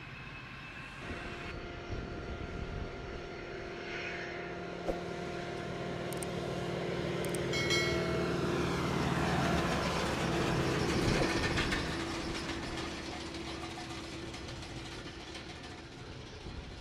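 Embraer Phenom 300 business jet's twin turbofans whining as the jet goes by, growing louder to a peak around the middle, then fading while the whine drops in pitch.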